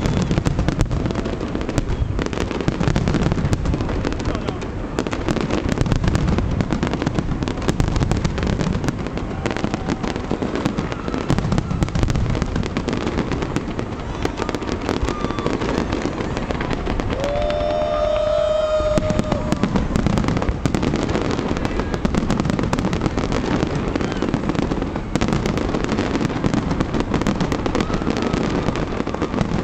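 Large public fireworks display: a dense, continuous barrage of shell bursts, bangs and crackling.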